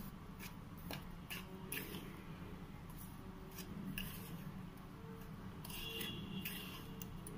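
Plastic spoon stirring dry rice flour and spices in a plastic bowl: faint, scattered soft scrapes as the powder is turned over and mixed.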